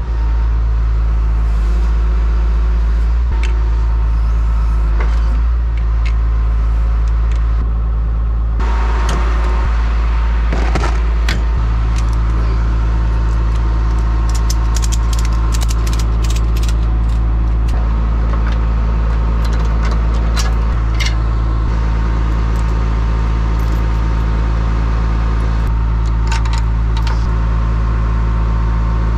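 A diesel tow truck's engine idling steadily, with metal clinks and rattles of tow chains and hooks being handled, most of them about nine to eleven seconds in.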